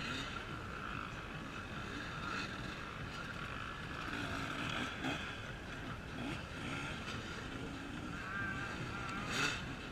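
Off-road racing dirt bike engines revving, several bikes rising and falling in pitch as they work through the course, over a steady hiss. A short sharp crack comes near the end.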